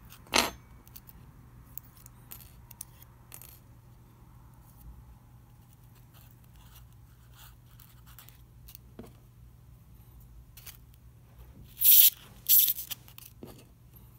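Small handling noises of paper strips and pins on a styrofoam board: a sharp rustle just after the start, scattered light clicks and taps, then two louder scratchy rustles close together near the end, followed by a soft knock.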